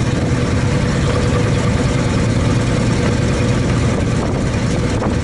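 1933 Chevrolet truck's 194 cubic-inch six-cylinder engine running steadily as the truck drives along a gravel road, heard from inside the cab with a steady whine above the engine note.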